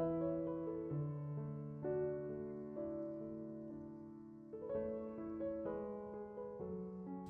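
Background music: slow, gentle piano playing sustained chords with no voice.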